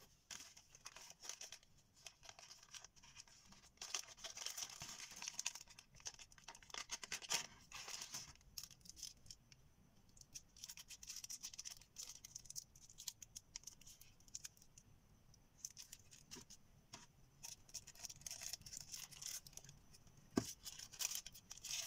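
Faint rustling and crinkling of a thin clear plastic sleeve as plastic-framed sunglasses are handled and slid out of it, with scattered small clicks from the frame and hinges and one sharper click near the end.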